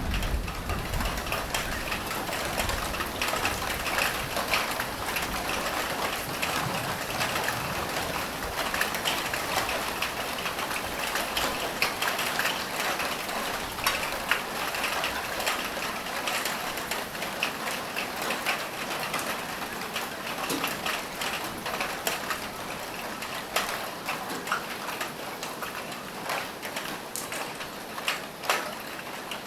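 Steady rain falling on a roof, an even hiss with many separate drops and drips ticking through it. A low rumble fades out in the first couple of seconds.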